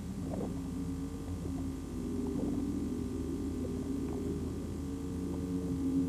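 Low droning soundtrack music: several held low tones layered over a steady hum, shifting in pitch now and then.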